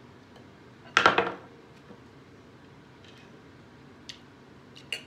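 Knife and fork cutting steak on a plate: one short, loud scrape of the knife across the plate about a second in, then a few light clicks of cutlery against the plate.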